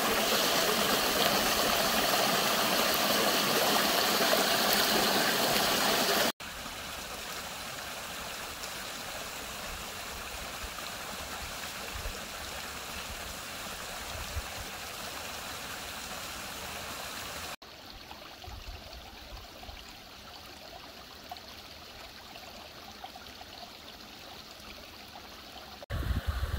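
Water cascading in a sheet off the edge of a micro-hydro turbine's intake collection box, a steady splashing rush. It drops abruptly to a quieter rush about six seconds in, and again about two-thirds of the way through.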